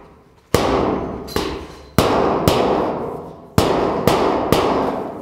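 Panel-beating hammer striking a steel car bonnet against a flat dolly, knocking down high spots: seven sharp metallic blows in an uneven rhythm, each ringing on and dying away.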